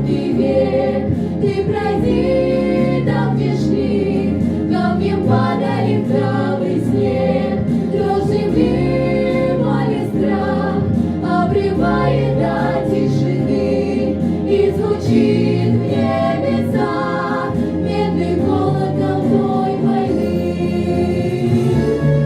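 Vocal ensemble singing in harmony over a recorded backing track, with long held notes.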